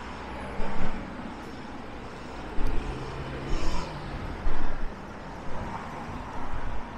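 Road traffic on a city street, a steady rumble of passing cars and buses. Several brief, irregular low bumps sit on top of it, the loudest things heard.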